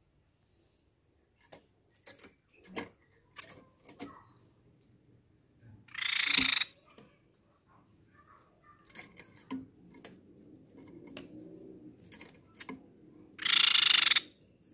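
Crescent-chested babbler (tepus pipi perak) giving two short rattling calls about seven seconds apart, with light clicks and taps from the cage in between.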